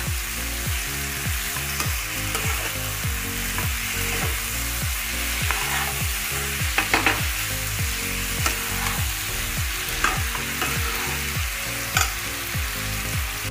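Potato and cauliflower masala sizzling in a hot nonstick kadai while a flat spatula stirs and turns it, scraping against the pan, with a few louder scrapes about seven seconds in.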